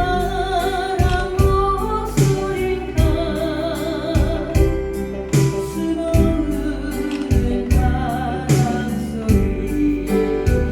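Korean popular song: a woman singing with vibrato over a band accompaniment with a steady beat.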